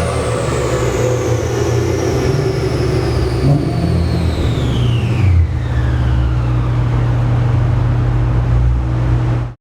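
BMW E92 M3's V8 running low and steady on a chassis dyno after a pull, under a high whine that falls steadily in pitch as the car coasts down. Two short louder bumps come about three and a half and five and a half seconds in. The sound cuts off suddenly at the end.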